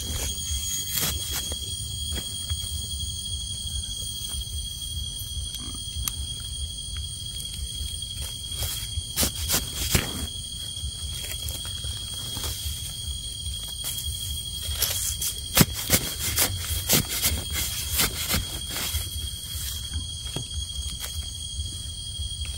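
Forest ambience: a steady high-pitched insect drone, with scattered crackles and snaps of dry leaf litter and twigs underfoot. The crackles cluster about two-thirds of the way through.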